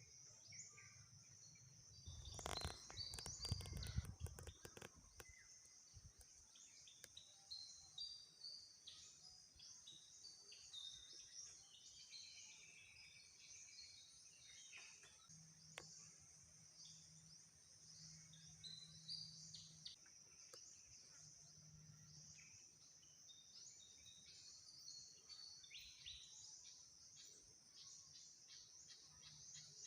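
Faint outdoor ambience of birds chirping again and again over a steady high-pitched hiss, with a brief rumble and rustle about two to five seconds in.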